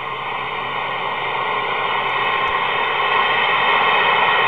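CB radio receiver hissing with static between transmissions, a steady band-limited rush that grows slowly louder.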